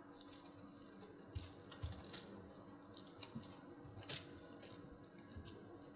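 Faint scattered rustling and light clicks of Bible pages being turned, over a low steady hum.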